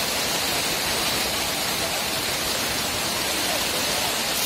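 Heavy downpour of rain, a steady even hiss of rain falling on wet ground and tarpaulins.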